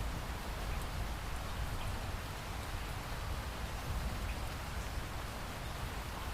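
Steady rain falling, an even hiss with a deep low rumble beneath and faint scattered drop ticks.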